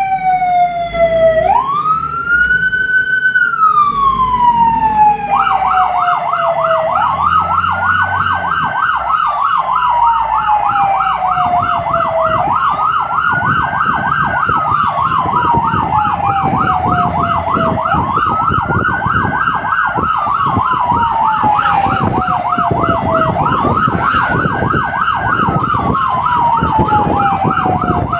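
Fire engine's electronic siren sounding while responding, heard from inside the cab: a slow wail that rises quickly and falls slowly about every five and a half seconds, joined about five seconds in by a rapid warbling yelp. The vehicle's engine runs underneath.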